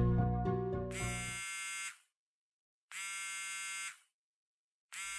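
Mobile phone buzzing: three even one-second buzzes about a second apart, starting about a second in. Background music fades out under the first buzz.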